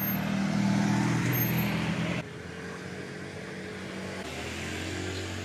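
Street traffic: vehicle engines running as cars and a pickup-truck taxi pass close by, with a steady low hum. About two seconds in, the sound drops abruptly to a quieter traffic hum.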